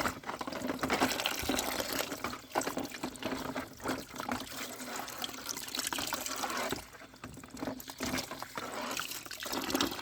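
Water running and splashing as toy vehicles are washed under a water pump, with many small knocks throughout; it drops off briefly about seven seconds in.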